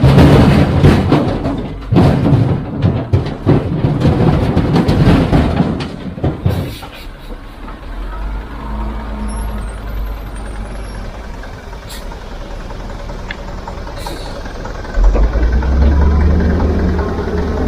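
Heavy diesel construction machinery working: loud clattering and knocks over the engine for the first several seconds, then a steadier engine drone that grows louder again near the end.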